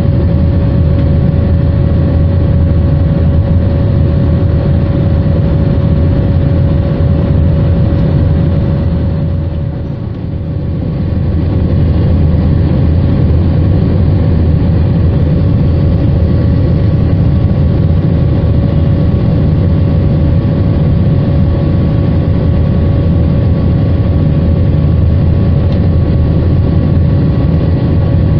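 Cabin noise of an Airbus A321-231 climbing after takeoff, heard inside the cabin by the wing: its IAE V2500 turbofans running with a steady low rumble, rushing air and a constant hum on top. The sound dips briefly about ten seconds in, then returns to its level.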